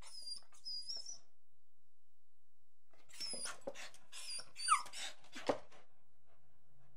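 Dog whining and yelping: a few short high-pitched squeals in the first second, then after a pause a quick run of squealing yelps, the loudest a sharp yelp dropping in pitch, followed by one short sharp call.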